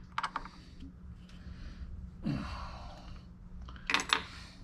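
Steady low hum of a running milling machine, with a few sharp metallic clicks of tool handling and a breathy sigh a little past the middle.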